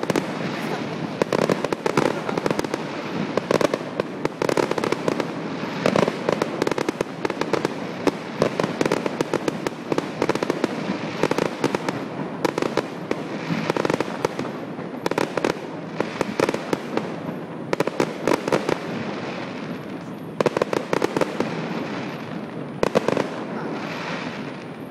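Aerial fireworks bursting over a lake: a rapid, continuous barrage of bangs and crackles that thins out near the end.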